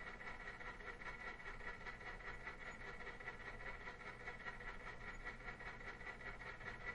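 Electromechanical timer switch running, its clockwork mechanism making a fast, even ticking over a faint steady hum.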